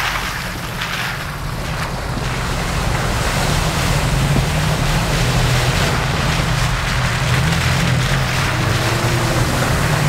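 Off-road Jeeps' engines running steadily as they drive through a shallow river ford, tyres splashing and throwing water, with wind rushing over the microphone. Slightly louder after the first few seconds as the next vehicle comes through.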